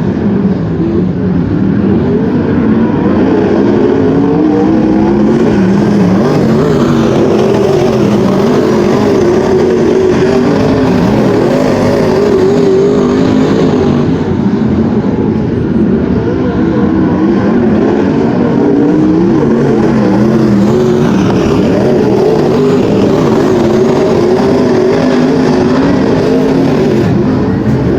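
Several wingless sprint car engines running hard in a race, their pitches overlapping and repeatedly rising and falling.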